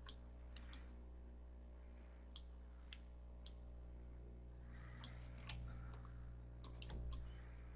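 Faint computer mouse clicks, about eight at uneven intervals, over a low steady electrical hum.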